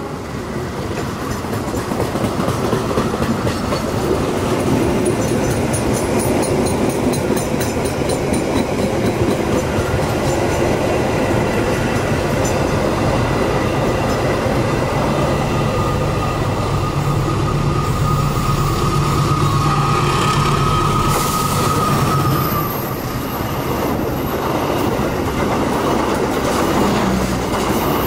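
Passenger train carriages rolling past close by: a steady loud rumble of steel wheels on rail, with an even ticking of wheels over rail joints. A thin steady whine joins in for several seconds past the middle.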